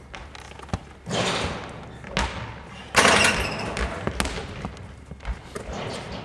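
A basketball thudding and slapping as it is bounced, caught and passed, several separate hits about a second apart, each echoing around a large sports hall.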